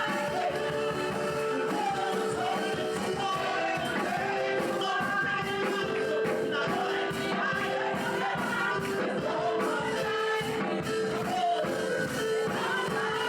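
Live gospel worship music: singing over a band, with long held notes and drums or cymbals keeping time.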